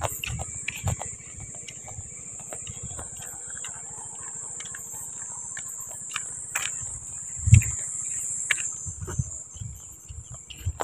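Steady high-pitched chorus of night insects such as crickets, with a few low thuds from walking. The loudest thud comes about seven and a half seconds in.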